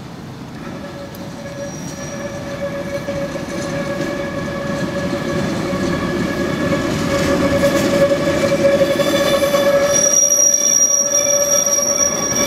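Heritage electric tram rounding a curve, its wheels squealing on the rails in a steady high tone over a low rolling rumble. It grows louder as the tram approaches, and a second, higher squeal joins about ten seconds in.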